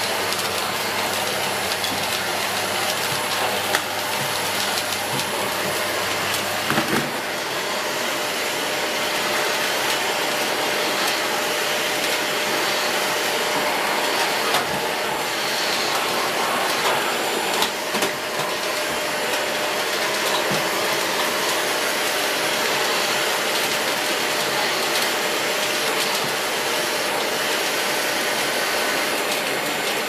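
Dyson Big Ball Animal (CY23) cylinder vacuum cleaner running steadily, with a steady whine, while its floor head is worked over kitchen floor mats. A few brief knocks come from the head and wand bumping along.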